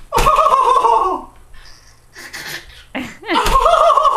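Baby girl laughing in two long peals, the first from the start to about a second in, the second starting about three seconds in.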